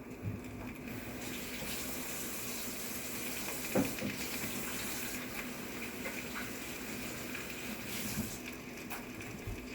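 Kitchen tap running in a steady stream, turned on about a second in and shut off near the end, with a brief knock partway through.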